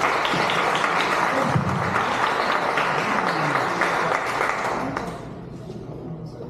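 A small outdoor crowd applauding and cheering a pair of race winners, dying down after about five seconds into a faint murmur of voices.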